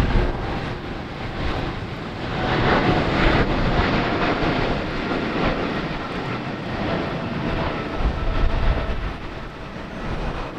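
Boeing 777-300ER jet airliner's GE90-115B engines: a rushing jet noise with faint steady tones, swelling about two to four seconds in and easing toward the end.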